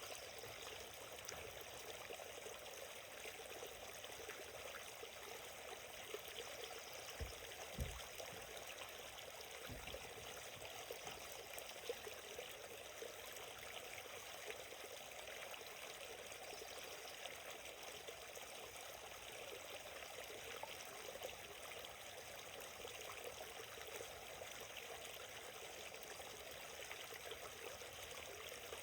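Small forest stream flowing steadily, an even rush of moving water with fine trickling. A few soft low bumps come about a quarter of the way through.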